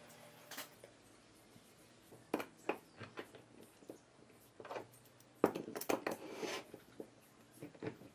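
Scattered clicks and knocks of metal bar clamps being slid onto and tightened against glued pine boards on a wooden workbench, with the loudest knock about five and a half seconds in.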